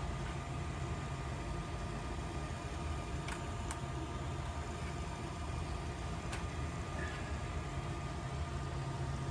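A steady low mechanical hum with a few faint clicks, about three and a half, four and six seconds in.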